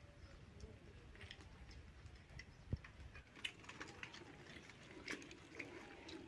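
Quiet eating by hand from steel plates: faint scattered clicks and scrapes of fingers working rice against the metal, with one sharper soft knock a little under halfway through.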